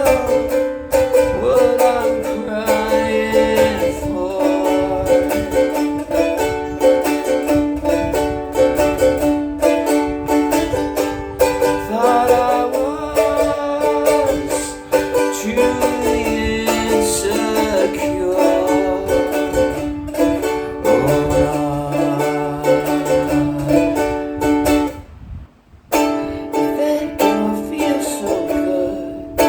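Music played on a plucked string instrument, a steady picked and strummed pattern. It breaks off for about a second near the end, then picks up again.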